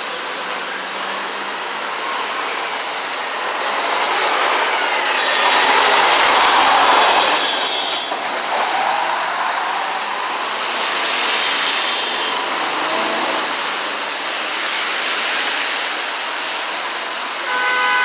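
Steady highway traffic noise from cars and trucks driving past, swelling as vehicles pass about six seconds in and again around eleven seconds. Just before the end, a car horn starts honking.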